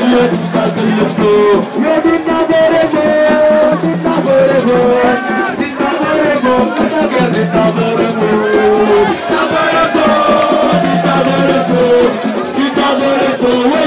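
Music: a melody over a low bass note that repeats about every three and a half seconds, with rattling shaker-like percussion throughout.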